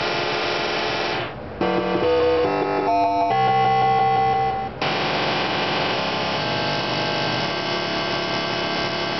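Williams High Speed pinball machine playing its synthesized game music and sound effects through its speaker, with a short jingle of distinct stepped notes in the middle between denser electronic sounds.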